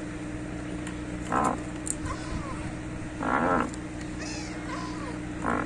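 Pelicans giving short, low grunting calls, about three of them, as they crowd around a feed bucket, over a steady low hum.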